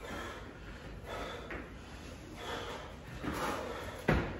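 A person breathing hard from the exertion of burpees and jogging in place, a series of heavy breaths, with footfalls on a rubber gym mat. About four seconds in, a sharp thud as hands slap down on the mat going into a burpee.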